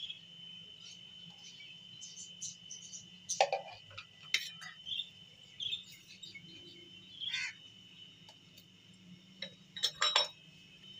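Steady high insect trill in the background, broken by a few sharp clinks of kitchen utensils: two about a second apart in the first half, and a quick pair near the end.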